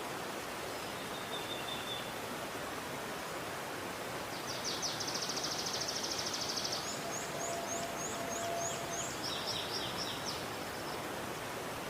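Steady rushing of a river, with birds singing over it: a fast high trill a little before halfway, then a run of short high rising notes and a few more chirps.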